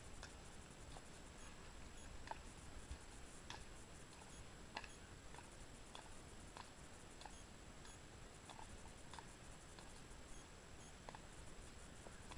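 Horse walking: faint, irregular clicks of its hooves about one or two a second.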